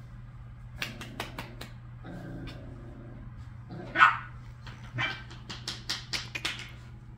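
Havanese puppy giving one sharp bark about four seconds in, with scattered short clicks and taps before and after it.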